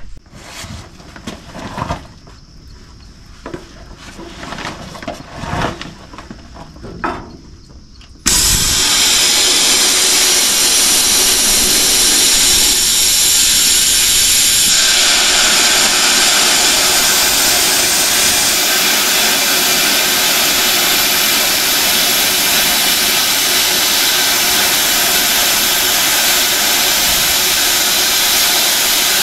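A few scattered knocks and clunks, then about eight seconds in a Miller plasma cutter starts cutting with a sudden loud, steady hiss that goes on without a break.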